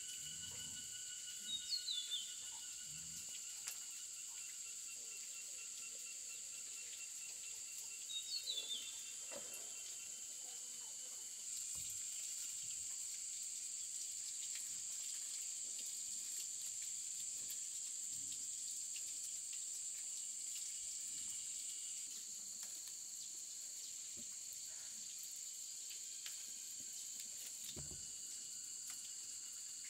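Insects droning steadily in several high, even tones, one of them growing louder about a third of the way in and easing off again a little past the middle. A bird gives two short calls early on the first third, with faint soft knocks of handling beneath.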